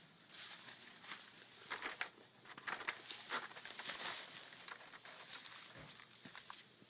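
Footsteps of a person walking outdoors, irregular short steps a few times a second.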